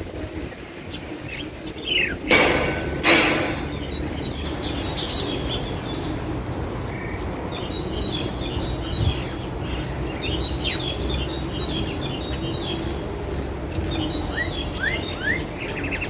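Songbirds chirping and calling in a tree: many short chirps, two loud harsh calls a couple of seconds in, and three quick rising whistles near the end. A steady low rumble of factory noise runs underneath.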